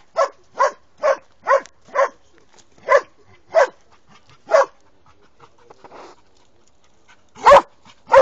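Young Posavac hound (Posavski gonič) baying at a cornered wild boar. It gives a run of short barks, roughly two a second, pauses for about three seconds, then resumes with louder barks near the end.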